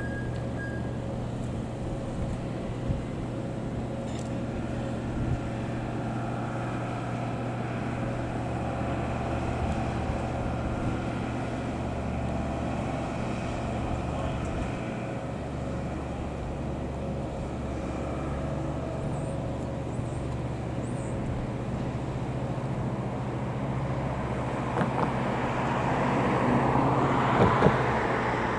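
Distant jet airliner, an Airbus A320-family jet, running its engines at taxi power as a steady low rumble and hiss. It grows louder near the end as the aircraft turns toward the microphone, with a few brief knocks.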